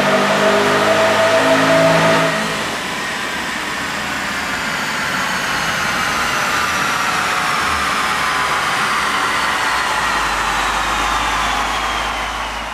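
2009 Pontiac G8 GXP's 6.2-litre LS3 V8 at full throttle in a dyno pull, then lifting off about two seconds in. For the rest, the car coasts down on the rollers with a whine that falls steadily in pitch.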